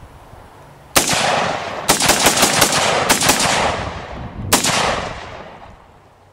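Rapid gunfire with long echoing tails: a single shot about a second in, then a fast string of shots in two quick runs, and one last shot near the end.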